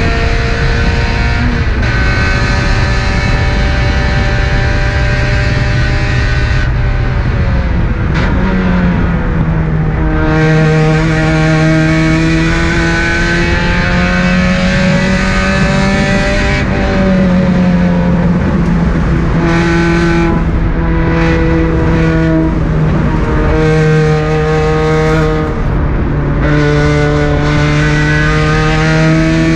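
Car engine being driven hard on a race track, its pitch climbing under acceleration and dropping sharply several times at shifts or lifts, over heavy wind and road noise.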